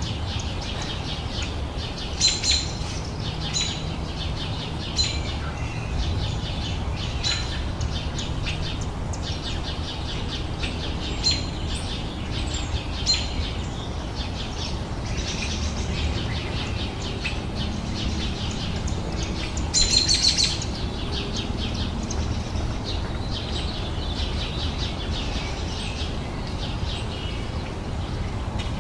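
Garden birds chirping and singing, several short high calls and trills overlapping, with a louder burst of song about twenty seconds in. A steady low rumble runs underneath.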